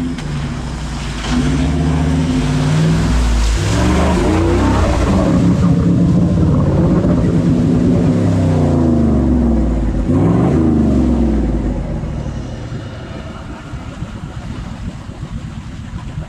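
Toyota LandCruiser 79-series single-cab ute's engine revving up and down hard as it pushes through a deep mud bog hole, with muddy water sloshing and spraying around the wheels. The revs climb and fall several times, then ease off in the last few seconds.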